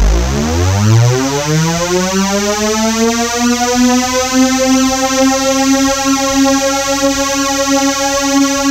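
Synthesized tone that sweeps up in pitch from a low rumble over about three seconds, then holds a steady note.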